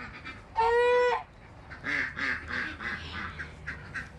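White Chinese gander honking once, a loud call of just over half a second at a steady pitch, answering a greeting. After it comes a run of softer, short, low calls.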